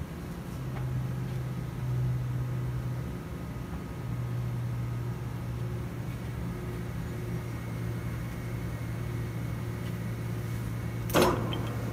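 Steady low hum of a Dainichi engine lathe's motor running. Near the end comes one sharp clunk as the spindle is put into gear, followed by faint rapid ticking as the chuck starts to turn.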